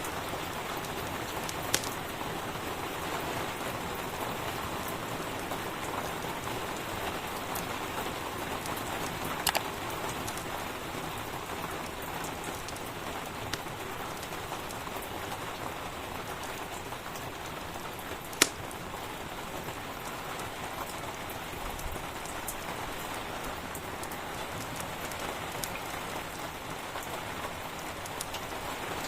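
Steady rain, an even hiss, with a few sharp isolated pops scattered through it, the loudest about eighteen seconds in.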